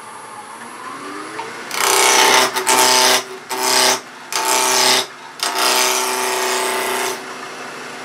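A wood lathe runs while a gouge cuts the corners off a square wooden blank spinning between centres, roughing it round. From about two seconds in the cutting comes in about five passes with short breaks, a loud rough noise carrying a steady buzzing tone.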